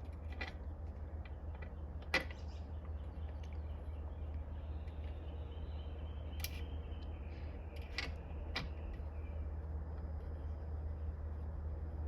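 A handful of short, sharp clicks from a hand installation tool and a thread-repair insert as the insert is wound into a stripped bolt hole in a transmission case, over a steady low hum.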